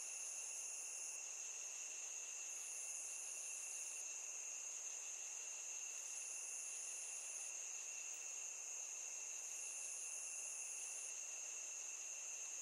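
Cricket chorus: a steady high chirring, joined by a still higher trill that comes in for about a second and a half every three seconds or so.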